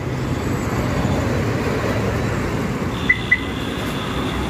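Steady low traffic rumble, then about three seconds in two quick high beeps from the Suzuki Swift's remote locking system answering the key fob, the remote that also folds and unfolds the power mirrors. A faint high steady tone follows the beeps.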